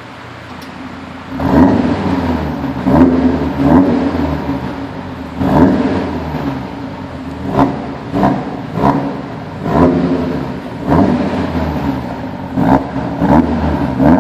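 Audi TT RS engine, through an ASG V2+ valved exhaust, revved in a series of short blips over a steady idle. It is quieter for about the first second and a half, then rises in level; there are roughly a dozen quick rev peaks.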